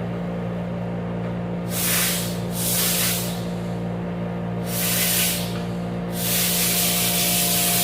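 Sandblasting cabinet blasting alternator parts: a steady motor hum with four bursts of blasting hiss, the last lasting about two seconds.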